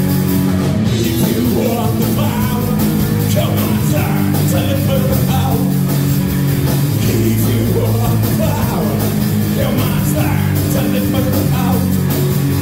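Live rock band playing: electric guitar, electric bass and drum kit, loud and continuous.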